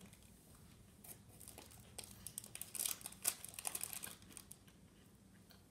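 Foil wrapper of a cookie pack crinkling as it is handled: faint, irregular crackles from about a second in, dying away after about four seconds.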